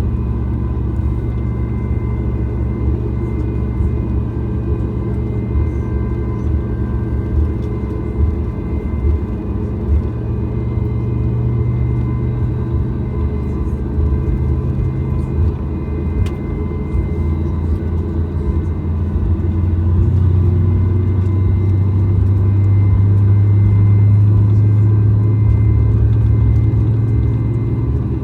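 Steady low rumble of a Boeing 737 MAX 8's CFM LEAP-1B engines running at low power, heard inside the cabin, with faint steady whines above it. The rumble swells louder about twenty seconds in.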